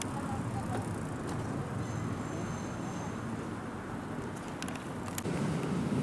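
Steady low rumble of road traffic. About five seconds in it gives way to louder wind buffeting the microphone.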